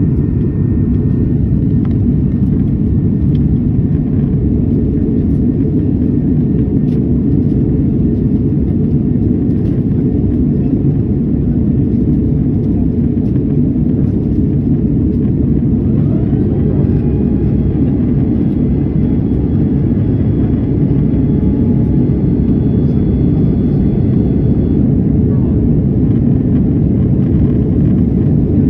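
Steady low rumble of jet airliner cabin noise in flight: engines and airflow heard from a window seat. About halfway through, a faint whine rises and then holds level for several seconds before fading.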